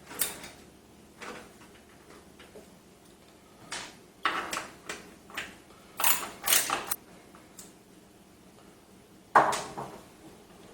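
Irregular clicks and knocks of a screwdriver, screws and metal case parts being handled as screws are taken out of a PC case's drive bay, with a denser cluster of clicks in the middle and one sharper knock near the end.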